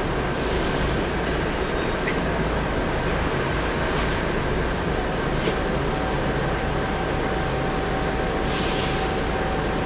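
Volvo B10M mid-engined bus running, heard from inside: steady engine and road noise under a thin, steady turbo whistle. A second, lower whistle tone joins about six seconds in.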